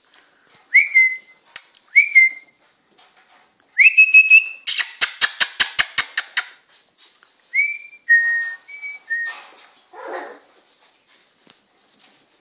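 Bichon Frise puppies giving short, high-pitched whines that rise and then level off: two in the first seconds, a longer one around four seconds in, and a few more after the middle. Between them comes a quick run of about eight sharp taps, roughly four a second.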